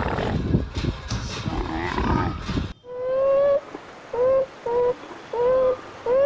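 Camels' rough, rumbling grunts and groans, which cut off suddenly a little under three seconds in. A sea otter's thin, high squeals follow: about five short calls, each slightly rising in pitch, with quiet gaps between them.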